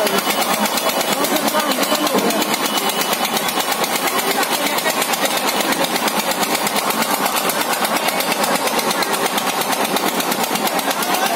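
Fairground ride machinery running steadily and loudly, a dense mechanical noise with a fast, even pulse.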